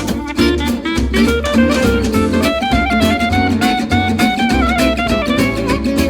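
Instrumental background music: a lively melody with sliding notes over a bass pulsing on a steady beat.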